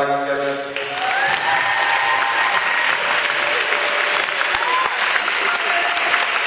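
Held voices end in the first second and a crowd breaks into applause and cheering, with a couple of high rising whoops.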